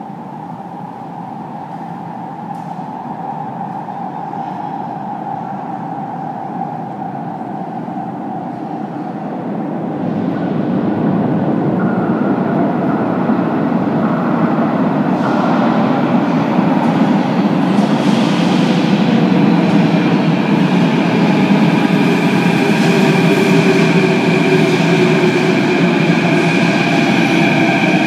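Athens Metro Line 3 train approaching through the tunnel and running into the station: a rumble that grows steadily louder, with a jump about ten seconds in. Over the last ten seconds a high whine of several tones joins in, sinking slightly in pitch as the train enters the platform.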